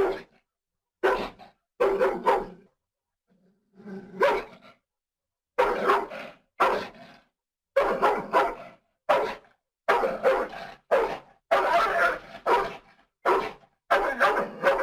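Dog barking repeatedly, short barks in irregular runs of one to three with clean silent gaps between them, about a dozen and a half in all.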